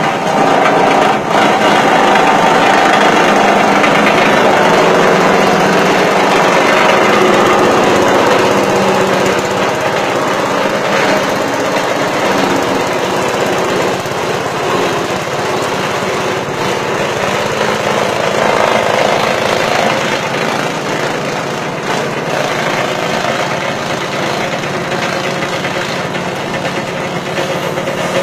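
Engine-driven grass chopper running under load as grass stalks are fed in and shredded: a loud, steady machine din, easing slightly after about ten seconds.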